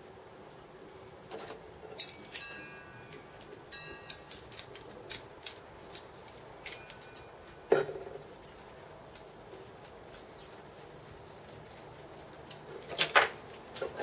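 Scattered metallic clicks and clinks of a steel punch-and-die jig and shim stock being handled on a workbench, a few of them ringing briefly. A heavier knock comes about eight seconds in, and a quick run of clinks near the end.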